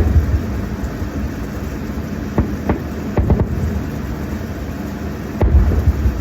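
Distant fireworks going off: a few sharp pops between two and three and a half seconds in, and a heavier low boom about five and a half seconds in, over a steady low rumble.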